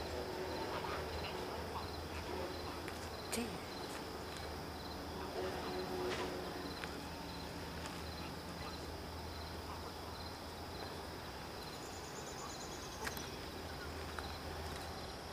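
Insects chirping, a short chirp repeating about once a second over a steady high buzz, with a steady low hum and a few faint clicks beneath.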